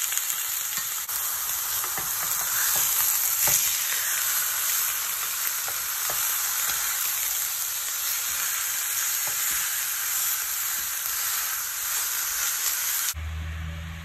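Rump steaks searing on a very hot ridged grill pan: a steady, dense sizzle with scattered small pops and clicks. About a second before the end the sizzle cuts off to a much quieter low hum.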